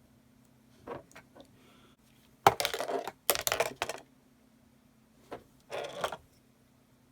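Hands handling small plastic building pieces and packaging: several short bursts of rustling and clinking, the loudest two about two and a half and three and a half seconds in, over a faint steady hum.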